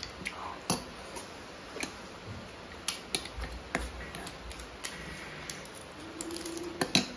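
A steel spoon clinking against stainless steel plates and bowls during a meal: scattered sharp clicks, the loudest near the end, with soft eating sounds between them and a brief low hum shortly before the last click.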